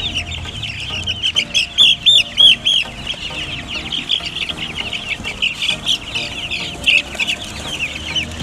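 A crowd of chickens cheeping at once, a dense stream of short high calls overlapping, with a few louder calls about two seconds in.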